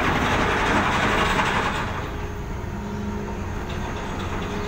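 Ferry's engines droning steadily as the ship gets under way, under a rushing hiss that eases after about two seconds.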